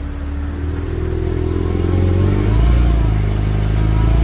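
Ford BA Falcon's Barra engine revving up from idle, heard from inside the cabin. The revs climb over the first two seconds and then stay up.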